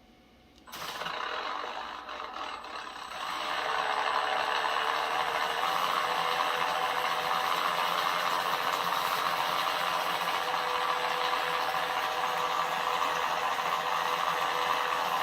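Steady electric whirring and rattling from an RC scale model Kenworth K100 Aerodyne truck's engine-smoke unit being tested. It switches on about a second in and steps up louder a couple of seconds later.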